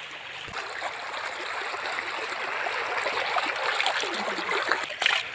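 Shallow river running steadily over gravel, a continuous rushing of water.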